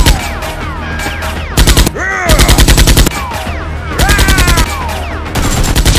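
Bursts of automatic gunfire, about a dozen shots a second: a burst ending right at the start, then four more bursts, the longest in the middle, with falling whistling tones between them.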